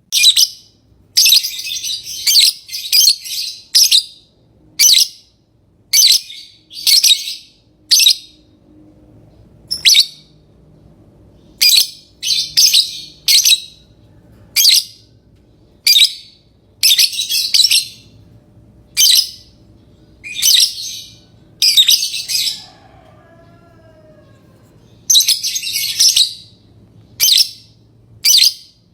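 Lovebird calling with loud, high-pitched chirps: short calls repeated about once a second, some in quick pairs, with a pause of about three seconds in the last third.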